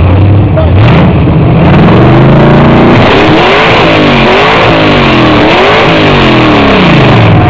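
Red first-generation Chevrolet Camaro's engine revved in a rev-off contest, loud: it climbs from idle over the first three seconds, then is blipped up and down several times before dropping back to idle near the end.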